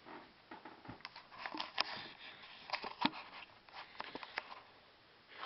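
Faint, scattered clicks and light knocks over a soft hiss in a small room.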